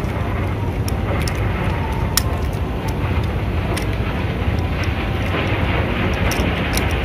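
Small boat's 8 hp engine running steadily at idle, a constant low drone, with a few light clicks over it.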